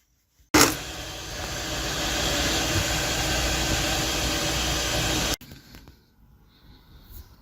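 BMW E60/E61 diesel engine starting abruptly about half a second in and running steadily for about five seconds, then cutting off suddenly. It is a test start with the cloned replacement Bosch EDC16C35 ECU fitted.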